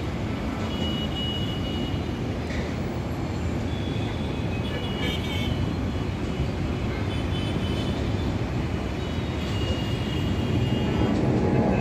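Steady low rumble of city traffic, with faint short horn toots now and then, growing a little louder near the end.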